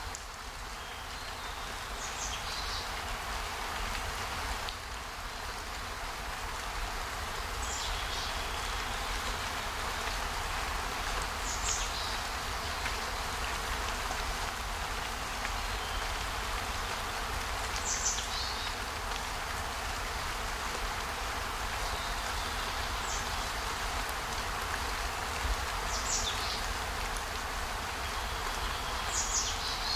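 Steady rushing of rain or running water, with a short, high call that falls in pitch repeated about seven times, a few seconds apart.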